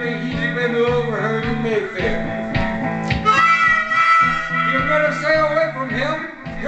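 Amplified blues harmonica (a Hohner Big River harp in D played into a Green Bullet microphone) playing a solo over a looped guitar backing with a steady beat. The harp bends notes early on, then holds a long chord about three seconds in.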